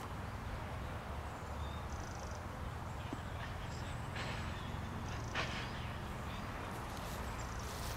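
Quiet outdoor ambience: a steady low rumble with a few faint clicks, and a soft knock about five and a half seconds in.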